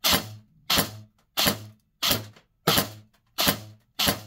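Double Bell SR25 airsoft electric rifle (AEG) firing single shots in semi-auto with 0.40 g BBs through a chronograph, about seven shots at an even pace of roughly one every 0.7 s. Each shot is a sharp crack with a short tail.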